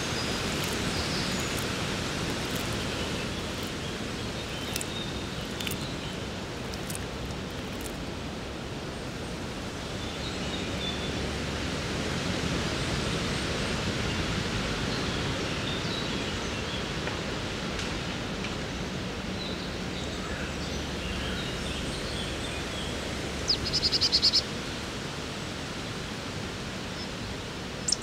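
Steady woodland background noise with faint scattered bird chirps. Near the end a songbird gives a short, fast rattling call lasting about a second, the loudest sound here.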